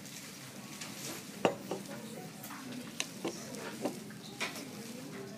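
Scattered light clicks and clatter of small hard objects being handled, over a steady low room hum.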